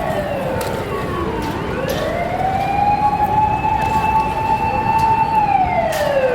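Japanese fire engine's electronic and mechanical motor sirens sounding together on an emergency run, in a slow wail. The pitch falls, climbs back up, holds high for about three seconds, then falls again near the end.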